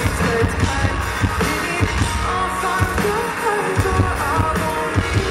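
Live rock-pop band: a woman singing lead into a handheld microphone over a drum kit and other amplified instruments, with steady drum hits throughout. The deepest bass thins out for about a second and a half midway, then the full low end comes back in.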